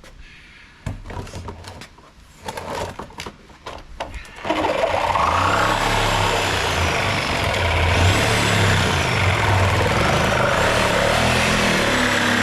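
A few clicks and knocks, then about four and a half seconds in a vehicle engine starts and keeps running steadily.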